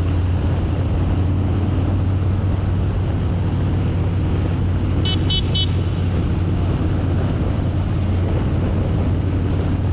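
Motorcycle riding at a steady road speed, heard from on board: engine running with a steady low hum under road and wind noise. About five seconds in, three short high-pitched beeps sound in quick succession.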